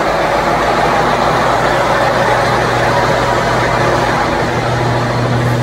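Kirovets K-744 tractor's diesel engine running steadily, just started after a major overhaul; its low drone grows stronger near the end.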